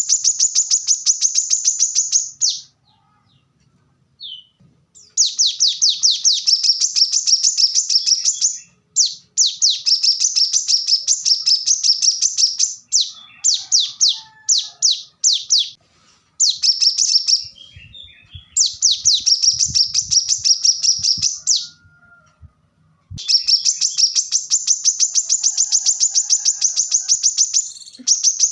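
Kolibri kelapa (brown-throated sunbird) singing its fast, tight chattering song: long runs of rapid high notes repeated about ten times a second, in phrases of a few seconds broken by short pauses.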